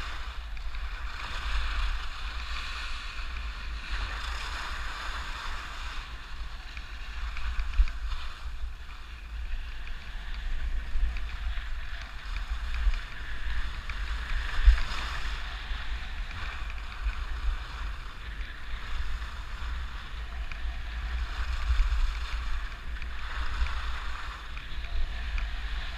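Skis sliding and carving on packed snow, a hiss that swells and fades with the turns, over a steady low rumble of wind buffeting the GoPro's microphone.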